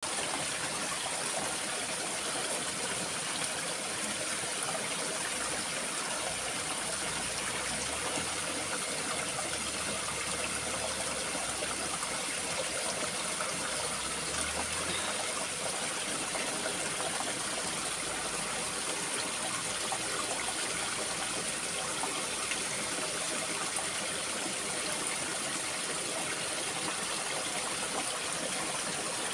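Stream water running steadily, with a constant high-pitched tone above it.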